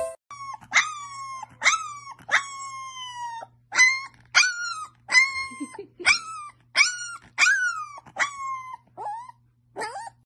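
Puppy howling: about a dozen short howls in a row, each jumping up in pitch and then holding or sliding slowly down, spaced roughly a second apart.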